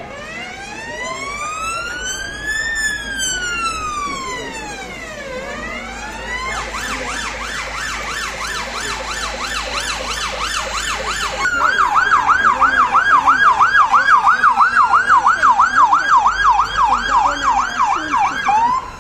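Emergency vehicle siren: a slow wail that rises and falls, switching to a yelp about six seconds in, then to a faster, louder yelp about twelve seconds in.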